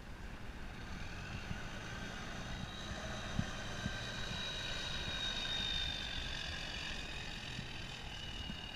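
Semi-truck pulling an empty flatbed trailer drives past, its whine swelling to a peak midway and then dropping slightly in pitch as it moves away. Wind buffets the microphone throughout.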